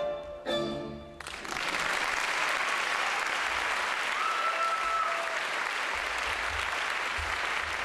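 The fiddle-led instrumental music ends on a last note about a second in, and an audience breaks into steady applause. One held whoop rises above the clapping about four seconds in.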